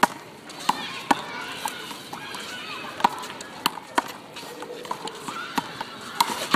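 A handball game in play: about nine sharp, irregularly spaced smacks of the ball off hands, wall and court, with faint voices behind.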